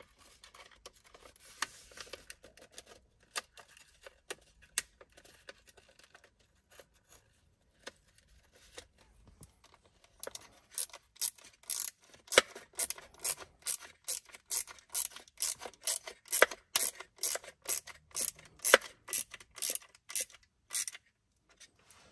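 Hand screwdriver driving small T10 Torx screws back in: faint scraping and rubbing at first, then, about halfway through, a long run of sharp, evenly spaced clicks about three a second as the driver is turned.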